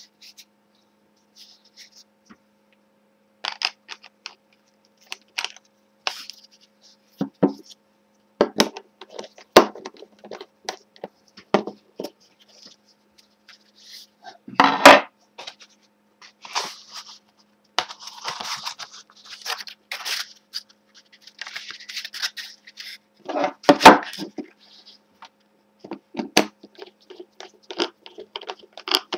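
A homemade wooden sanding block and sanding belt being handled on a tabletop: scattered knocks and clicks as the block is picked up and set down, with a few seconds of rubbing and scraping about two-thirds of the way through, and two louder knocks.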